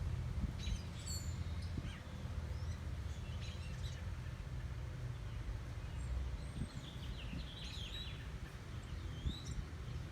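Wild birds chirping in short, scattered calls over a steady low background rumble.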